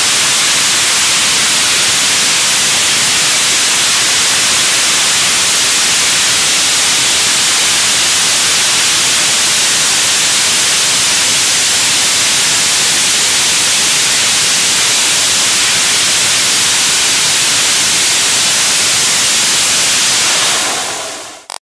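HTTP-3A stage-2 hydrogen-peroxide/thermoplastic hybrid rocket engine, a cluster of four nozzles, firing in a vertical hot-fire test: a loud, steady hissing roar of exhaust. It fades out and stops near the end.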